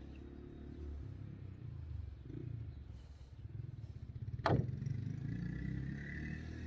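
One sharp metallic snap about four and a half seconds in, typical of a Beretta 301 semi-automatic shotgun's bolt slamming closed as the action is worked. It sounds over a low handling rumble.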